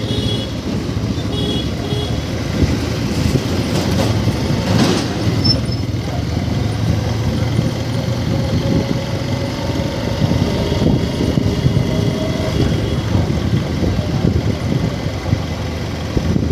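Motorcycle riding along a road at low speed, with its engine, tyre and wind noise continuous throughout.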